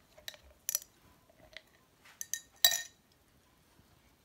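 A Border Collie crunching an ice cube between his teeth: about six sharp crunches in the first three seconds, the last one the loudest.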